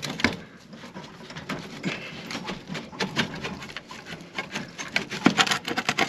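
Galvanized pellet-stove vent pipe being twisted and worked loose from its T fitting: irregular metal scraping and clicking, with a quicker run of sharp clicks about five seconds in.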